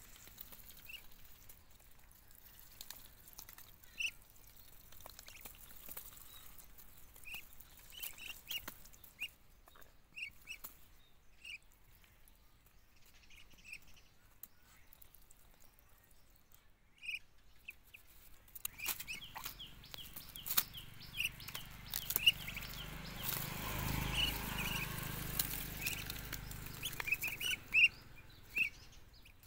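Short, high bird chirps repeat through the clip, with scattered sharp clicks. In the second half a low hum swells and then fades away.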